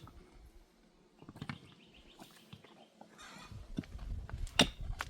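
Outdoor camp sounds: scattered sharp knocks and clicks with faint bird or chicken chirps. A low rumble builds from about three and a half seconds in.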